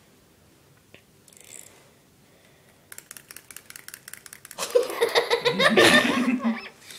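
People laughing: quiet for the first few seconds, then breathy giggling starts about three seconds in and breaks into loud laughter in the last couple of seconds.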